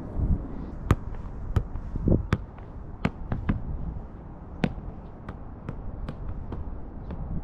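A football being struck again and again, heard as about a dozen sharp, irregular thwacks, over a low steady rumble.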